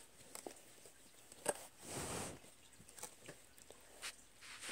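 Faint handling noises: light rustling and taps as hands move bedding around in a box, with a sharp tap about a second and a half in and a brief swish just after.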